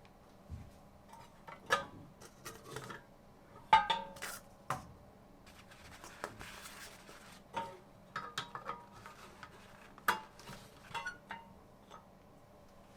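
Hard objects, most likely the 3D-printed plastic parts of a toilet paper roll holder, being handled and fitted: irregular clicks, knocks and clinks, a few with a short ring, the loudest about four seconds in and again about ten seconds in.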